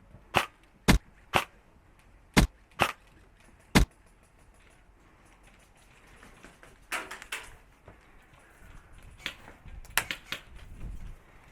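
An airsoft rifle fires single shots: six sharp cracks in the first four seconds, half a second to a second apart. After that come quieter scattered knocks and rustles.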